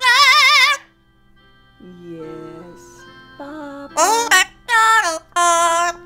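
Blue-fronted Amazon parrot singing loud, high notes with a strong vibrato: one long wavering note at the start, softer lower sounds after a pause, then three short notes near the end.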